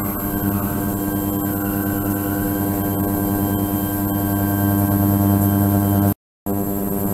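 A 72 kHz ultrasonic transducer runs in a water-filled resin tank, giving a steady hum with many overtones. The sound cuts out briefly about six seconds in.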